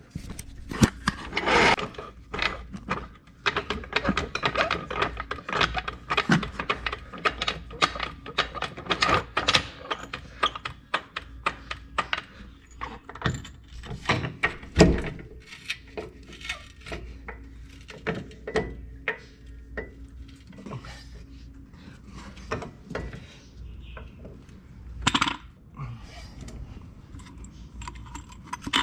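Metal tools and parts clinking and knocking, an irregular run of sharp clicks and taps.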